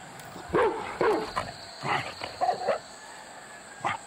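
Dogs barking and yapping in a territorial face-off between an adult dog and a snarling puppy: a run of short barks over about two seconds, then one more near the end.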